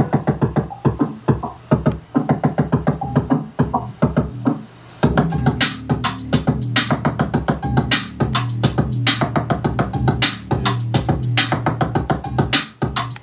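Hip-hop beat playing: a melodic loop on its own for about five seconds, then drums and deep bass come in.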